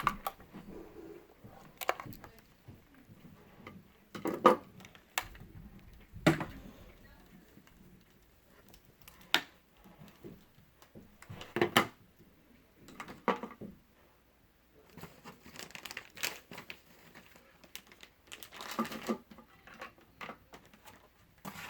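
Handling noise from airsoft gear and its plastic packaging: crinkling with scattered, irregular clicks and knocks, the loudest about four, six and twelve seconds in.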